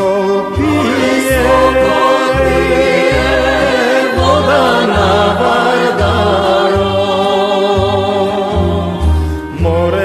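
Macedonian folk song: a voice singing the opening lines over instrumental accompaniment, with a bass moving in long, even notes.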